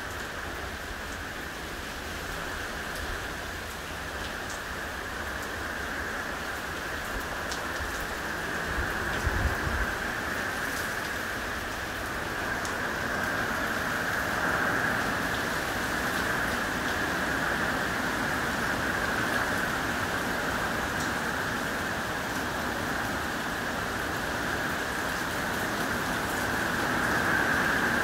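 Steady rain from a hurricane's outer rain band falling on a grassy yard and trees, getting louder after the middle. A brief low rumble comes about nine seconds in.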